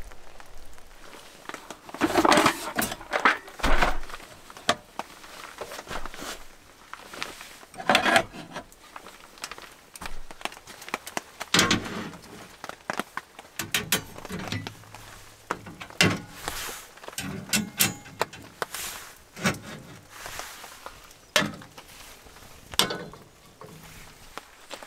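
Camp gear being handled at a vehicle's rear door: a series of separate knocks, clicks and light metal clatter as a fold-down metal table is opened and a gas stove and cookware are set on it. The loudest knocks come about two to four seconds in and around eight seconds.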